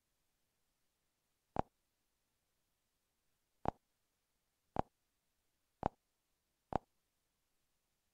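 Five single computer-mouse clicks, sharp and short and spaced unevenly about a second apart, over near silence.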